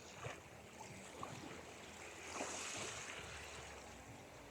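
Soft ocean surf, waves washing in, with one wave swelling up about halfway through.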